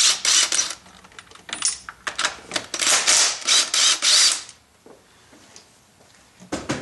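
Craftsman power wrench on a socket extension spinning the 13 mm stud out of a thermostat housing, in two bursts of rapid clicking; it stops about four and a half seconds in.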